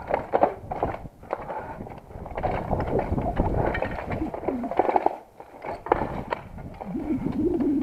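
Footsteps crunching irregularly over loose rubble and through tall grass, with equipment shuffling as the player moves.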